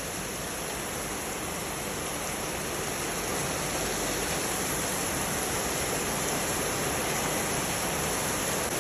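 Heavy rain pouring down in a steady, even rush, growing slightly louder.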